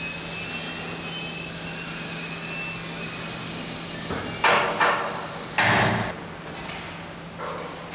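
Shipyard work noise: a steady machinery hum, then several loud metallic bangs and clanks in the second half, the loudest a little over halfway through, with a fainter clank near the end.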